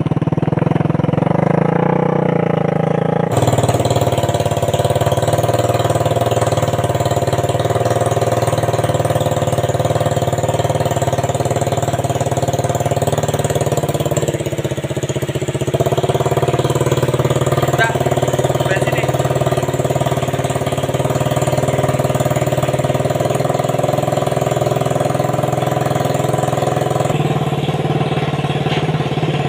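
The motorcycle engine of a homemade mini buggy running steadily, its note changing abruptly a few seconds in and again near the end.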